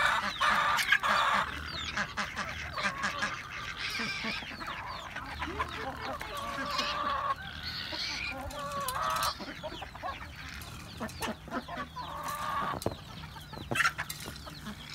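A flock of chickens and ducks clucking and calling as they crowd around scattered feed, with several longer drawn-out calls and many short taps throughout.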